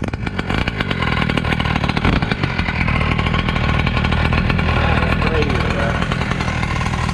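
Small two-stroke gasoline engine of a large-scale RC monster truck running steadily, a fast even buzzing putter, with voices talking in the background.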